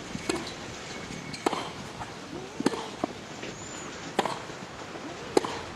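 Tennis rally: a ball struck back and forth by rackets, five sharp hits about a second and a quarter apart.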